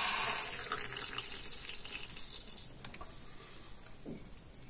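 Liquid squirting from a hand-pumped syringe through a needle into a plastic tub of liquid, splashing and fizzing, then trailing off over about two seconds. A single click comes near the three-second mark.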